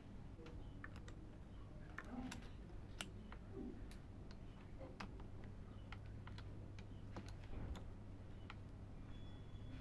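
Irregular light metallic clicks and taps as an end mill is set into a keyed drill chuck and the chuck is tightened with a chuck key, over a faint steady low hum.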